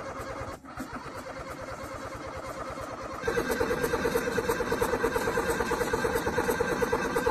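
Small tractor engine running with a rapid, even pulse, getting louder about three seconds in.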